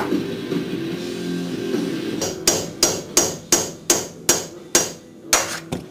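Guitar music, then about ten sharp metal-on-metal hammer blows, roughly three a second, starting about two seconds in. A hammer is driving a ball joint fork in to separate the middle ball joint from a BMW Z3's lower control arm.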